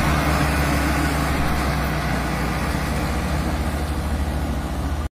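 Diesel engines of two farm tractors hitched in tandem running steadily under heavy load as they haul an overloaded sugarcane trailer, easing slightly in loudness as they pull away.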